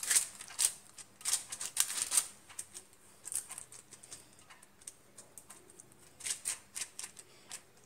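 Fingers patting and pressing Maddur vada dough flat on an oiled sheet of butter paper: irregular soft pats and crackling ticks from the paper, thicker at the start and again near the end.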